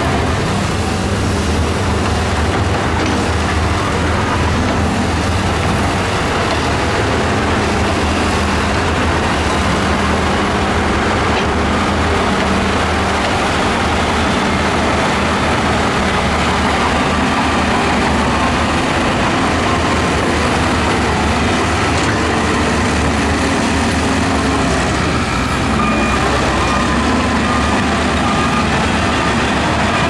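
Diesel engine of a Shantui DH17C2 crawler bulldozer running steadily under load as it pushes rock, together with other heavy earthmoving machines working close by.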